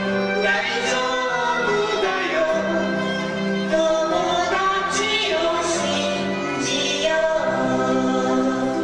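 A song from a stage musical: voices singing together over instrumental backing music.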